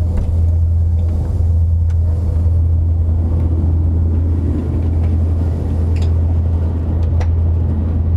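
Cabin drone of an Antonov An-24's two Ivchenko AI-24 turboprop engines and propellers in cruise: a loud, steady low hum.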